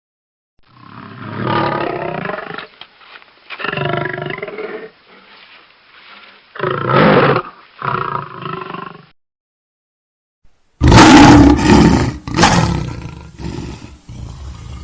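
Lion roaring: a series of four deep, drawn-out calls. After a short pause comes a louder, harsher roar that tails off near the end.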